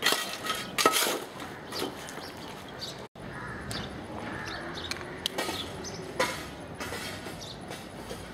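Outdoor ambience on a camcorder microphone: an irregular background with faint distant voices and several sharp knocks, cut off for an instant about three seconds in where the footage is spliced.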